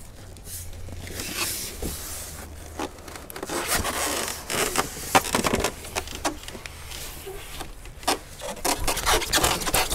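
Foam packing blocks and a cardboard shipping box rubbing and scraping as a heavy electric scooter is lifted out, with irregular knocks and rustles.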